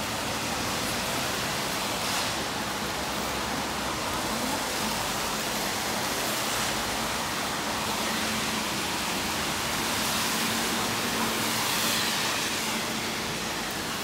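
Steady hiss of rain falling on a city street, with traffic noise underneath.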